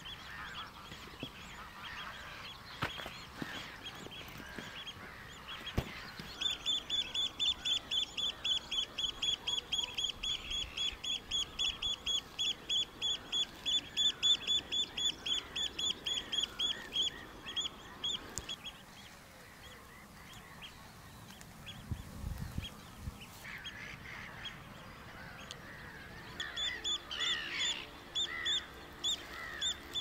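A bird calling in a long run of short, high notes, about four a second, for some twelve seconds, then again near the end, with other birds calling faintly in the background.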